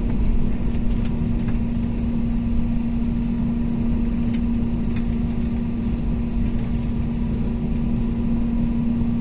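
Airliner cabin noise: the engines running as a steady drone with one constant low tone, and a few faint clicks and rattles.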